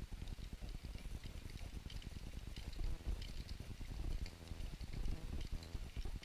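Wind buffeting the microphone of a fixed camera, a fluttering low rumble, with faint scattered ticks above it.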